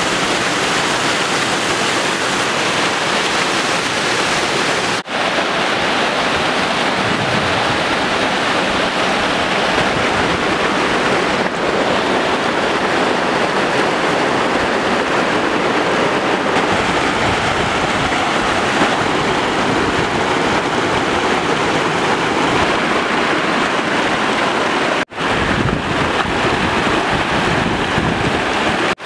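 Mountain stream cascading over rocks: a loud, steady rush of water. It drops out for an instant twice, about five seconds in and again near the end.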